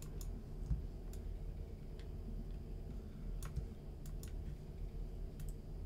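Computer mouse clicking as objects are selected and resized in a map editor: about nine sharp clicks at irregular intervals, some in quick pairs, over a low steady hum.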